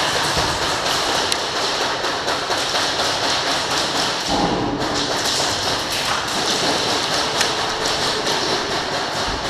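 Airsoft gunfire: a dense, continuous patter of BBs striking walls and cover, with many sharp clicks of shots and hits.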